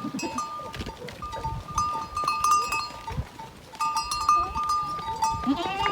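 Flock of sheep, with bells on the animals ringing on and off and a bleat near the end.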